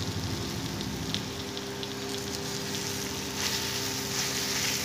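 Boiled potato and spice mixture sizzling in hot oil in an aluminium kadai, with a metal turner scraping and clicking against the pan as it is stirred.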